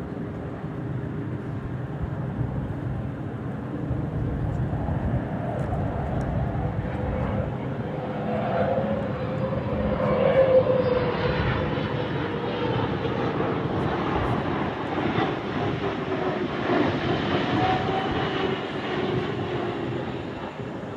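Twin GE9X turbofan engines of a Boeing 777X passing by with a steady jet noise, the engine tones bending in pitch as it goes, loudest about halfway through and easing off near the end.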